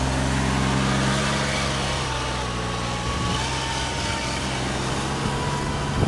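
Engine of a Kubota RTV utility vehicle running at a steady speed, its hum holding even and thinning slightly after about two seconds.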